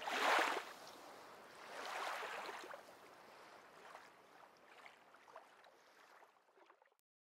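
Water washing in surges, with two swells in the first few seconds, then dying away until the sound cuts off near the end.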